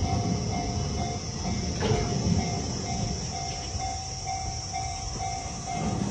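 Railroad crossing alarm ringing in a steady pulse about twice a second, over the low rumble of a freight train rolling through the crossing at very low speed. A single clank sounds about two seconds in.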